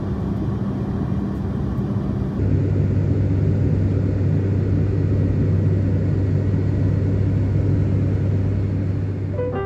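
Steady drone of a turboprop airliner's engines and propellers heard inside the cabin, its hum shifting to a lower, stronger pitch about two and a half seconds in.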